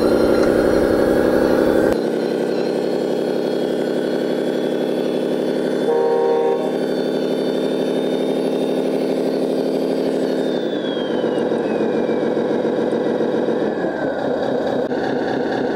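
Diesel truck engine sound from the RC Scania tow truck, running steadily, with a short horn blast about six seconds in and a slowly falling whine near the end.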